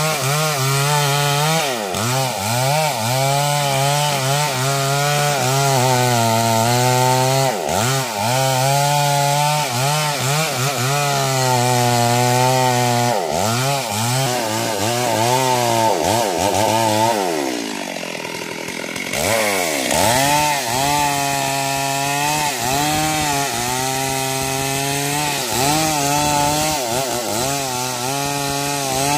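Stihl MS 382 two-stroke chainsaw running at full throttle as its chain cuts into a sengon tree trunk, the engine pitch repeatedly dipping under load and recovering. About eighteen seconds in it drops briefly to a lower, quieter run, then revs back up and carries on cutting.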